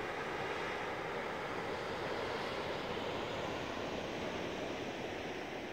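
Ocean surf breaking and washing over rocks at the foot of a sea cliff, a steady rush of noise without distinct crashes.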